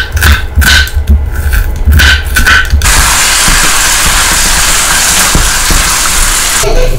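A chef's knife chopping onion on a wooden cutting board, about three strokes a second. About three seconds in it gives way to ground beef with diced onion and green pepper sizzling in a frying pan, a steady loud hiss.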